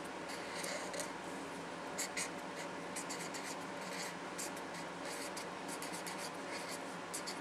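Handwriting: quick, scratchy strokes of a pen on a writing surface, in short runs with small pauses between them.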